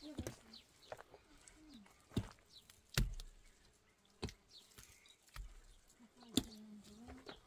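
Wet mud plaster being slapped and pressed by hand onto an earthen hut wall: a handful of scattered short slaps and knocks, the loudest about three seconds in.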